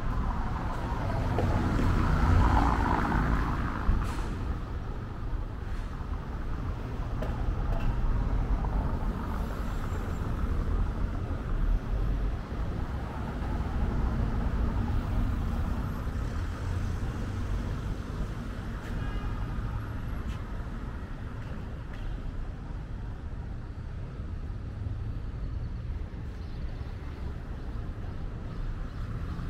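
City street traffic: motor vehicles running and passing, with a brief louder hiss about two seconds in and a single click at about four seconds.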